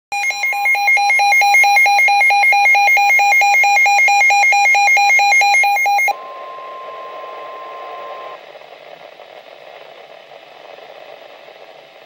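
A weather alert radio's built-in alarm beeping loudly and rapidly in a high pitch for about six seconds, signalling a severe thunderstorm warning. It then cuts to the broadcast's steady single warning tone for about two seconds, followed by faint radio hiss.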